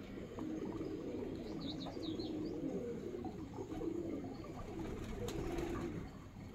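Domestic pigeons cooing continuously in low, rolling warbles, with a few short high chirps about a second and a half to two seconds in.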